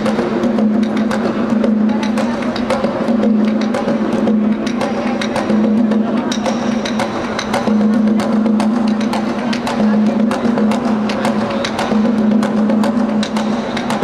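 Solo Dominican tambora, a two-headed barrel drum, played with a stick in one hand and the bare hand on the other head. It keeps up a fast, steady merengue-style rhythm of sharp wooden stick clicks over a ringing drum tone.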